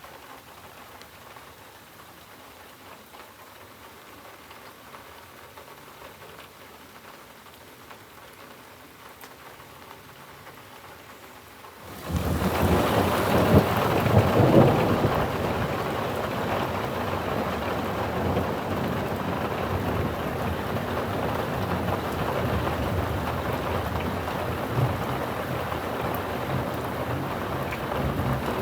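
Thunderstorm: faint rain hiss at first, then about twelve seconds in a loud, steady downpour starts suddenly, with thunder heard in it, loudest just after the rain comes on.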